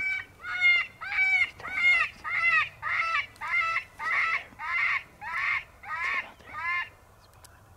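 Coyote predator call playing an animal distress sound: a series of about a dozen short, wailing cries, evenly spaced a little over half a second apart, stopping about seven seconds in.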